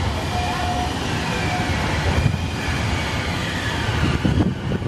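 Tram-stop rail traffic: a steady low rumble from trams, with faint high squealing that glides slowly down in pitch. Two low bumps come about two seconds in and near the end.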